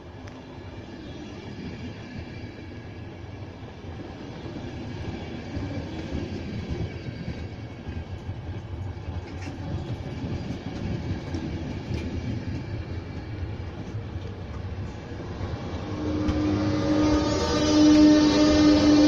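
Push-pull passenger train rolling past close by, the control car and coaches rumbling over the rails and growing louder. Near the end the ČD class 162 electric locomotive pushing at the rear goes by with a loud steady hum and a high whine over the rumble.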